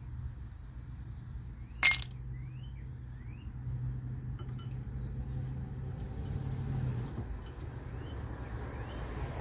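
Metal brake parts or tools clinking once, sharply, about two seconds in, while the worn brake pads are taken out of the caliper. A steady low hum continues throughout, and a few faint short rising chirps come through.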